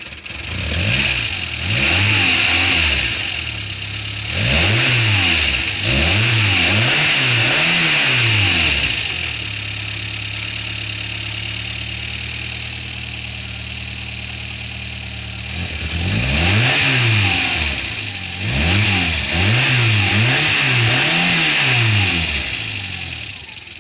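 Renault 9 engine running after a hard start, blipped up and down in repeated revs, settling into a steady idle for several seconds in the middle, then revved several more times. It now runs after the fuel filter and spark plug change, sounding better.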